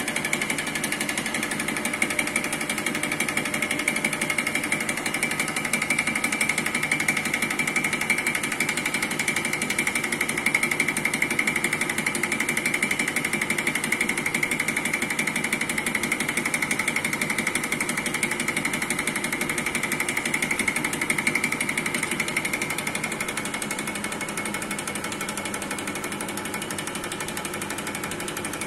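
Reciprocating pump test rig running steadily while delivering water, with a rapid, even mechanical knocking and a high whine on top. The whine fades and the sound drops a little about three quarters of the way through.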